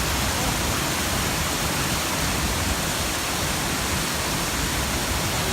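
Steady rush of flowing creek water, an even unbroken noise.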